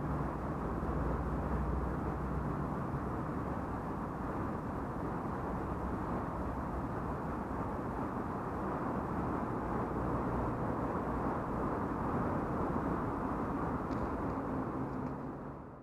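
Toyota Mark II's engine running steadily, a low even hum with no revving.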